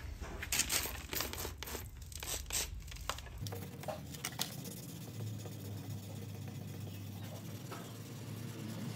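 Small detailing brush scrubbing around a plastic side-marker lens on wet car paint. It starts with a quick run of sharp swishing strokes for about three seconds, then turns to softer, fainter scrubbing.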